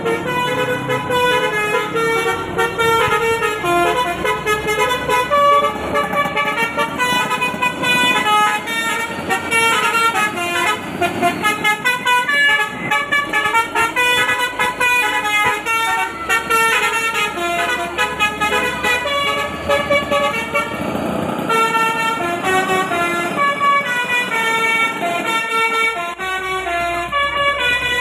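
A truck's multi-tone 'telolet basuri' horn playing a fast tune, its notes stepping up and down several times a second.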